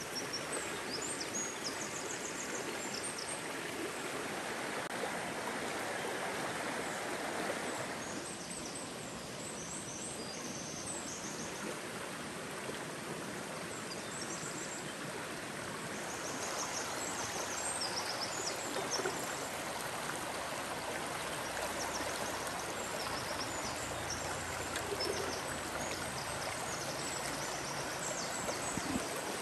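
Shallow river rushing over stones in a steady wash, with birds chirping high now and then.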